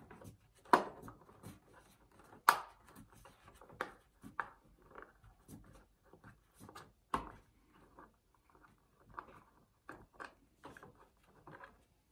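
A thin metal pick scraping and prying at the plastic back panel of a TDK A73 boombox, making irregular small clicks and scrapes. Sharper clicks come about a second in, at about two and a half seconds and at about seven seconds.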